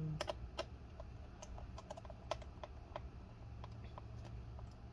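Small screwdriver driving the last screw into a laptop's bottom cover: faint, irregular small clicks and ticks.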